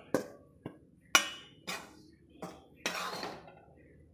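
Metal utensil clinking and knocking against a steel pan and bowl as roasted wheat flour is scooped and tipped across: a string of sharp clinks about half a second apart, with a longer scraping clatter about three seconds in.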